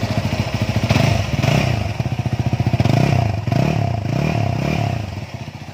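Yamaha WR250R's 250cc DOHC four-valve single-cylinder engine running, revved in several quick throttle blips that rise and fall in pitch, easing back toward idle near the end.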